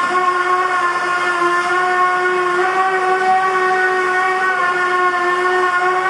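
Construction machinery making a loud, steady, high-pitched whine on one pitch with overtones, wavering slightly but never stopping.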